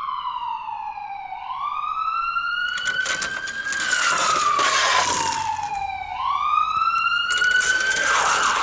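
A siren wailing, its pitch slowly falling and rising twice and then holding high near the end, over a rattling of a toy fire truck's plastic wheels rolling along a plastic ramp.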